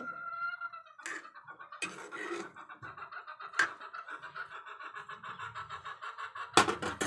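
Metal spatula clinking and scraping against a steel kadai as a simmering pan of khar with green gram and potatoes is stirred, with a few sharp knocks. A steady pulsing tone runs underneath throughout.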